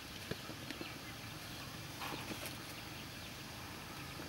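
Metal spoon lightly tapping and scraping in a pan of syrup-soaked sticky rice: a few scattered clicks, a small cluster about two seconds in, over a steady low background hum.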